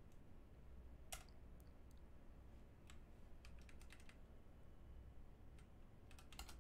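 Faint, scattered computer keyboard keystrokes: single clicks about a second in, a quick run of keys around three seconds, and another few near the end, over a low steady hum.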